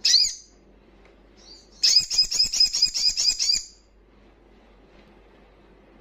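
Olive-backed sunbird calling: one sharp high chirp at the start, then about two seconds in a fast, loud trill of about fifteen high notes that lasts nearly two seconds.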